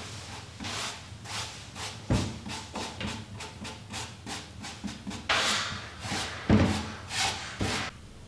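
Paintbrush strokes rubbing wood stain onto a wooden cabinet door, repeated back-and-forth strokes, louder in the second half, with a couple of dull knocks against the wood.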